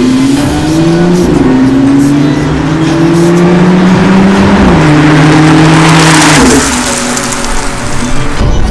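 Audi S5 (B8.5) supercharged 3.0 V6 through an AWE Touring cat-back exhaust, accelerating hard: the engine note climbs and drops back at each of two upshifts, then falls away as the car eases off about three-quarters of the way through.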